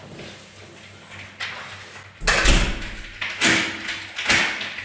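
A door shutting with a deep thud about two seconds in, followed by two shorter, sharper noisy sounds.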